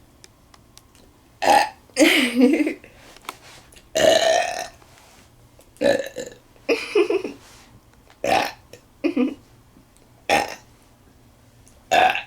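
A woman belching repeatedly, about nine loud burps in quick succession, some short and sharp and others drawn out, from soda-induced gas.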